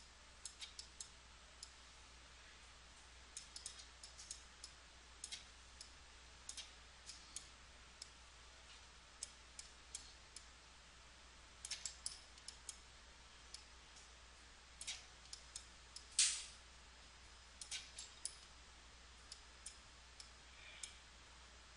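Computer mouse clicking irregularly: light, sharp clicks come singly or in quick clusters, a few per second at most, with a louder one about 16 seconds in. A faint steady low hum runs underneath.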